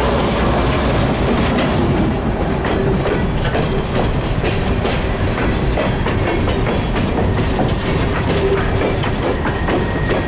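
CSX freight train's open-top hopper cars rolling past close to the track: a loud, steady rumble with scattered clicks as the wheels cross rail joints.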